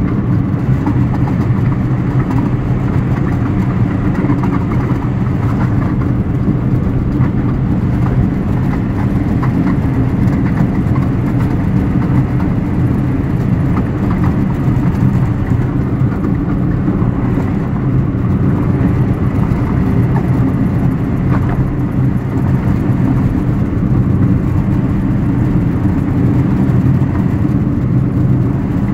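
Steady road and running noise heard inside the cabin of a moving Chrysler PT Cruiser: a continuous low rumble.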